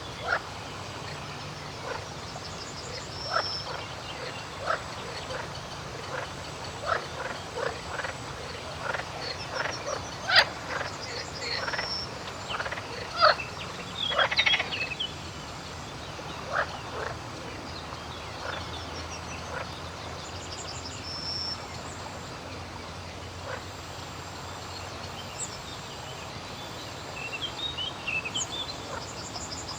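Frogs croaking in short, irregular calls, thickest in the first half, with birds chirping and briefly twittering above them over a steady outdoor hiss.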